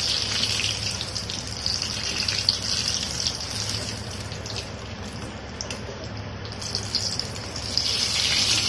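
Bread pizza pockets deep-frying in hot oil in a kadhai: a steady sizzling hiss that eases off in the middle and grows louder again near the end. Faint short clicks come from the slotted steel spoon touching the pan as the pieces are turned and lifted out.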